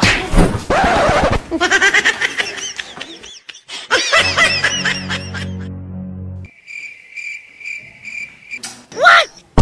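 Comedy sound effects: music with a laughter effect, then a cricket-chirp effect about two-thirds of the way in. The chirp is a steady high trill pulsing about twice a second for roughly two seconds.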